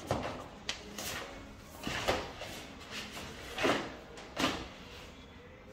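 Several short knocks and sliding scrapes, irregularly spaced, over a faint steady hum.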